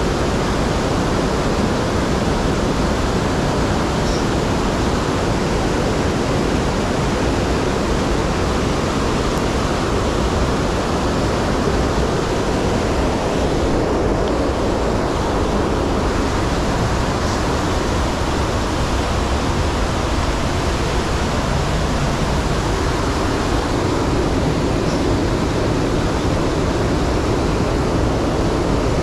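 Steady, loud rush of running water.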